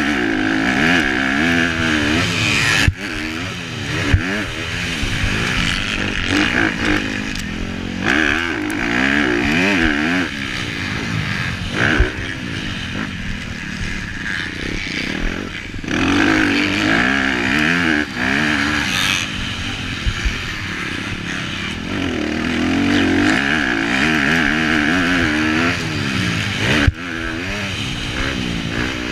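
Honda CRF250R four-stroke single-cylinder motocross engine ridden hard, its revs rising and falling over and over as the throttle is worked, with a few brief throttle cuts and some sharp knocks. Wind rush on the microphone runs under it.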